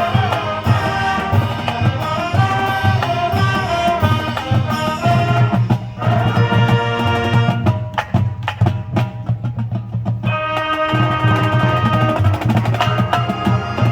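High school marching band playing: brass chords over drumline percussion. The chords thin out for a few seconds in the middle, leaving mostly drums, then come back in.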